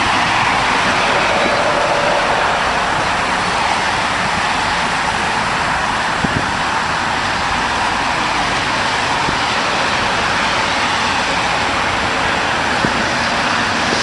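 Steady roar of highway traffic, an even wash of tyre and engine noise with no single vehicle standing out. A couple of brief faint knocks come about halfway through and again near the end.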